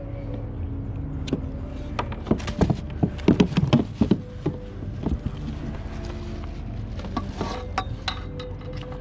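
A freshly landed fish being handled on a fishing kayak: a quick run of knocks, thumps and clatters, bunched from about two to five seconds in, with a few more later.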